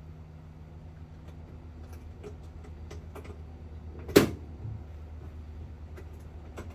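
One sharp snap about four seconds in as a locking tension-hook latch on a Pakayak Bluefin 142 kayak's bulkhead is snapped shut, joining two hull sections, with a few faint clicks of the latches being handled. A steady low hum runs underneath.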